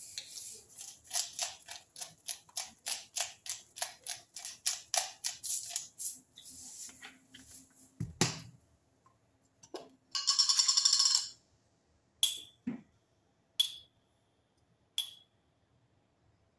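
Hand-twisted salt grinder cracking rock salt in a quick run of gritty clicks, about four a second, for the first six seconds. About ten seconds in comes a loud buzzing tone lasting about a second, followed by a few separate light clicks.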